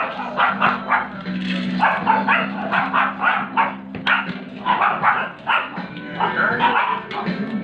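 Several dogs barking over and over in short bursts, about three barks a second, over background music with long held low notes.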